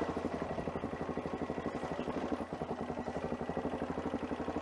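Adventure motorcycle engine idling steadily, an even run of firing pulses with no revving.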